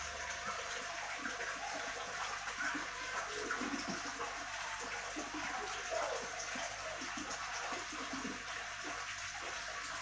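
Steady running and splashing of water from an aquarium's canister filter, its return pipe stirring the tank's water surface.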